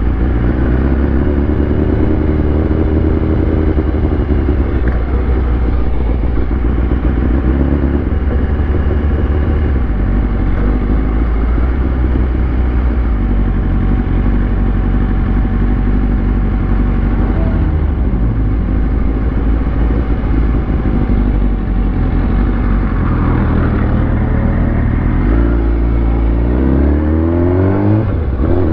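Superbike engine heard from the rider's seat, running at low revs while cruising along. Near the end it accelerates, with the revs rising and a gear change just before the end.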